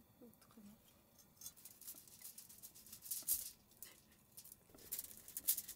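Kitchen knife cutting and scraping away the burnt, charred crust of a thick hanwoo beef steak on aluminium foil: a run of dry, crackling scrapes, loudest about three seconds in and again near the end.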